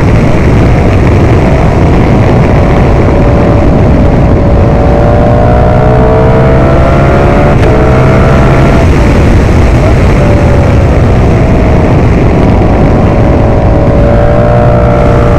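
Ducati V4 Pikes Peak motorcycle's V4 engine under way, its note climbing and dropping back several times as the rider accelerates and shifts. It is heard under loud, steady wind rush on the microphone.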